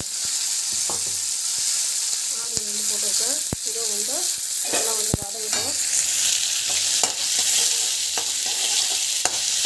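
Chopped onions frying in hot oil in a pan, a steady sizzle broken by a few sharp clicks.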